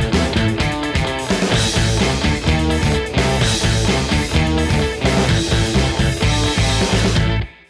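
Rock background music with guitar and a steady beat, fading out just before the end.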